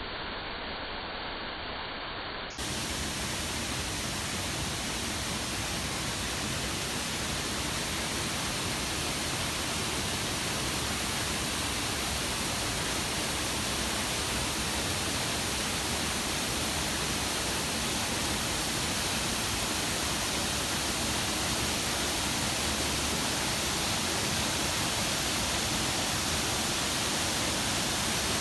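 Artificial waterfall: water pouring down in a steady, even rush. About two and a half seconds in it turns brighter and a little louder.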